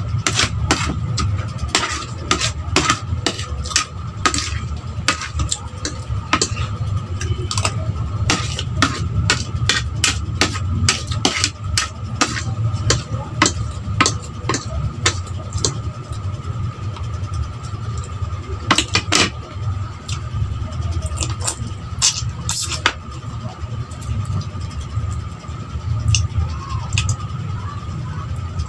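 Close-up eating sounds: a metal spoon and fork clinking and scraping on a plate, with chewing. The clicks come thick and fast for the first half, then thin out. Under them runs a steady low hum.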